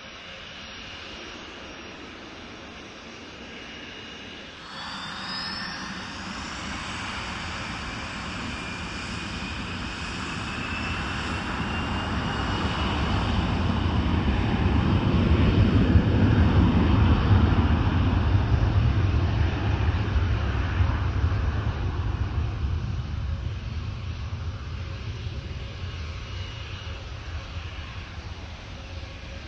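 Jet airliner's engines spooling up to takeoff power: a sudden rise in noise about five seconds in, with whines climbing in pitch, then a deep rumble that builds to its loudest midway and slowly fades.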